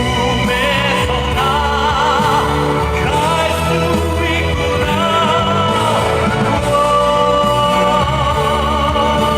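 Live band music with a sung melody line carrying heavy vibrato over steady bass and drums.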